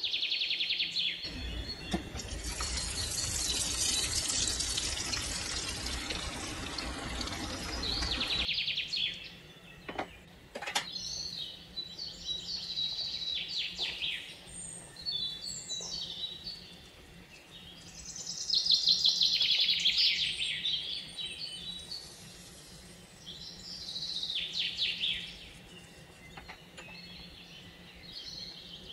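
Birds chirping and trilling in quick repeated notes, on and off throughout. From about a second in, a loud steady hiss runs under them and cuts off about eight seconds in.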